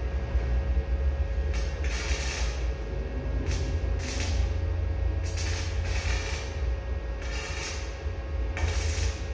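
Electric arc welding on a steel tube frame: the arc crackles and sizzles in a run of short bursts, about one a second, over a steady low rumble.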